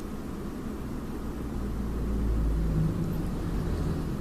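Motor vehicle running: a low engine and road rumble that grows louder about halfway through, then eases.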